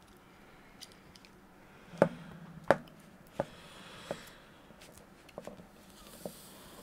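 Light clicks and rustles of a wiring loom's stripped wire ends being handled and twisted together by hand, in irregular small ticks, the sharpest about two seconds in and again soon after.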